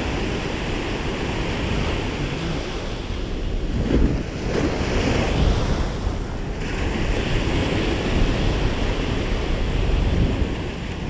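Small waves breaking and washing up and back over the sand at the water's edge, with wind buffeting the microphone.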